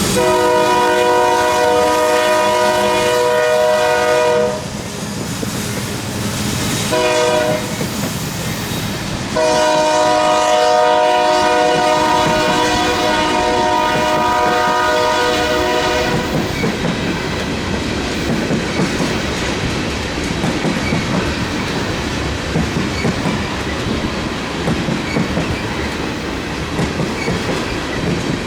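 Union Pacific diesel locomotive's multi-chime air horn sounding long, short, long, the end of the standard grade-crossing signal, followed by the train rolling with railcar wheels clattering over rail joints.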